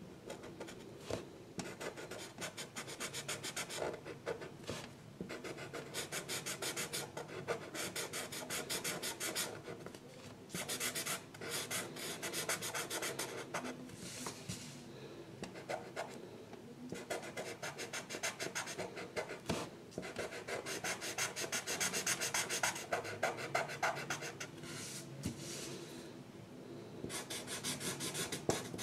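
A drawing tool scratching across paper in rapid back-and-forth strokes, in runs of a few seconds broken by short pauses.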